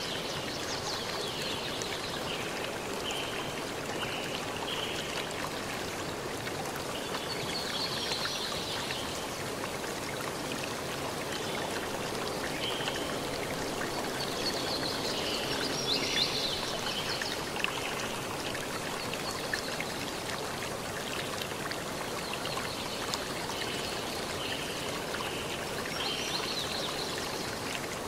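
Steady rushing noise like running water, with clusters of faint high chirps that come and go every several seconds.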